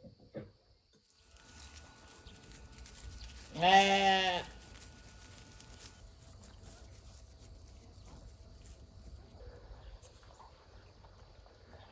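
A sheep bleating once, a single call about a second long, roughly four seconds in.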